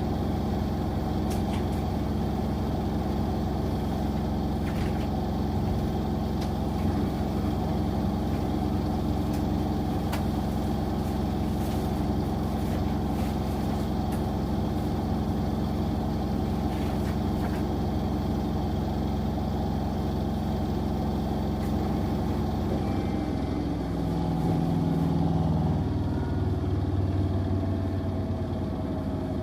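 Two washing machines, an LG with Centum direct drive and a Zanussi, spinning side by side: a steady motor hum and drum whir. About 24 seconds in, the pitch shifts and glides as one machine changes spin speed.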